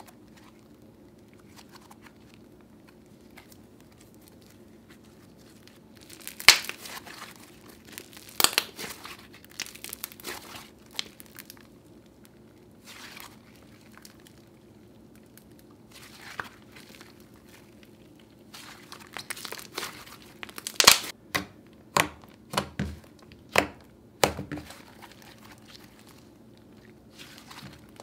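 Thick pastel slime being stretched, folded and squished by hand, with crackling and sharp pops from air trapped in it. It is quiet for the first few seconds, and the pops are loudest about six to nine seconds in and again around twenty to twenty-five seconds.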